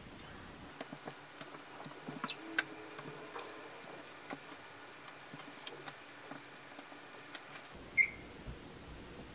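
Hands pressing and smoothing a taped paper calendar against a wall: light paper rustling with scattered small taps, the loudest about two and a half seconds in and another sharp one near the end.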